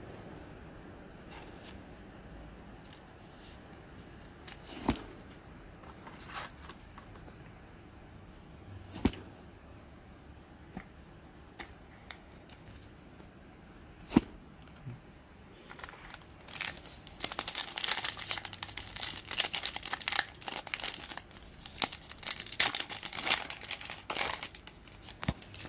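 A foil trading-card pack wrapper being torn open and crinkled, a dense crackle over roughly the last ten seconds. Before that, a few single clicks and taps of cards being handled.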